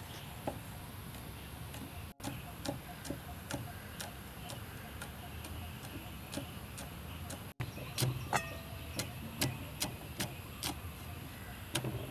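Cleaver chopping red chillies on a wooden chopping block: a steady run of sharp knocks, about three a second, louder in the last few seconds.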